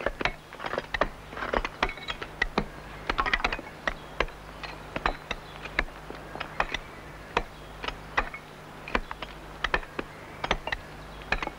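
Steel-tipped stone-hewing hammers (Schrothämmer) striking sandstone in irregular, overlapping blows, about two to three a second. Each blow is a sharp clack with a brief ring as it chips out the trench around a grindstone block.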